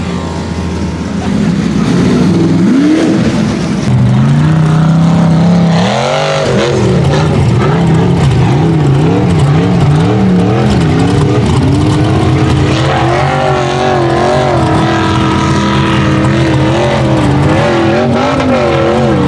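Rock bouncer buggy's engine revving hard under load on a steep dirt hill climb, its pitch climbing about three seconds in, then rising and falling again and again as the throttle is worked.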